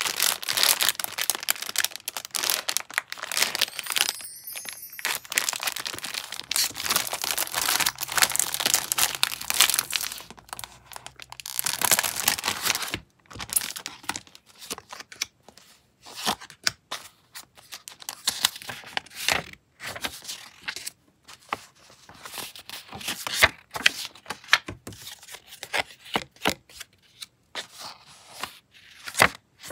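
A clear plastic packaging bag crinkling and rustling in a dense, continuous run as a bundle of paper goods is drawn out of it. From about halfway on, paper cards and tags are handled and flipped through one at a time, giving separate rustles and slides of paper.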